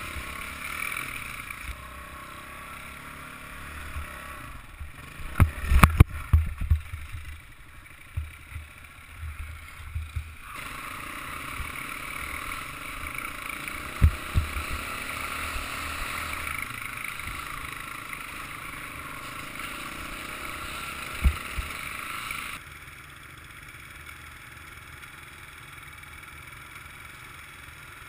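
Off-road trail motorbike engine running under way on a rough dirt trail, heard muffled from a helmet-mounted camera, with a cluster of knocks from bumps about five to seven seconds in and single knocks later. It drops quieter for the last few seconds as the bike slows and pulls up.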